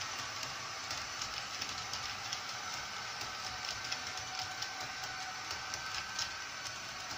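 Model train running on the layout: small wheels rolling and clicking irregularly over the track, with a faint steady motor whine.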